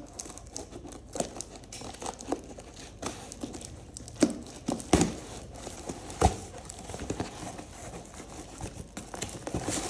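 Plastic packaging being handled and unwrapped: irregular crinkling and crackling, with a few sharper knocks of the parcel being handled about four, five and six seconds in.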